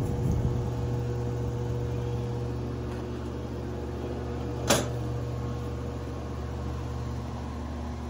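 1953 Fedders Weather Bureau window air conditioner running with a steady motor hum. A single sharp knock comes a little under five seconds in.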